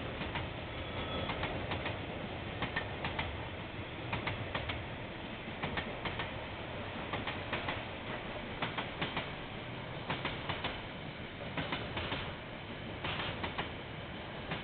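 Train passing on the line, its wheels clicking over the rail joints at an uneven pace over a steady rumble, heard through a security camera's microphone.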